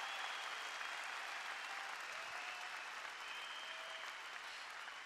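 A large audience applauding, the clapping slowly dying away.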